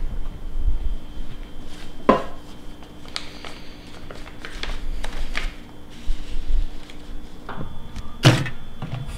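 Paper envelopes being handled and torn open, with scattered knocks and clicks. Near the end a sharp clank from the lid of a stainless steel step trash can as the papers are thrown away.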